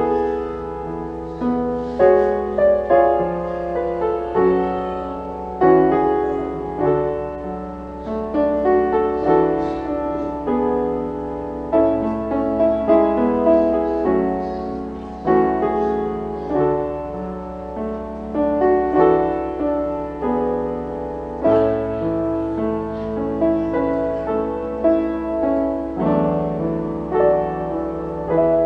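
Grand piano playing a slow, gentle passage of struck chords and melody, new notes every second or so, over a steady low hum.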